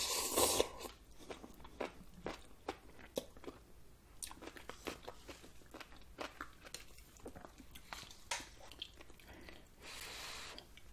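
A person slurping spicy ramen noodles from chopsticks in the first second, then chewing with many small wet mouth clicks. A short rush of air comes near the end.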